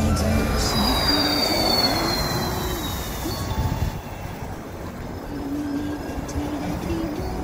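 Road and drive noise heard inside a moving car, a steady rumble. Over the first few seconds a thin, high whine slowly falls in pitch.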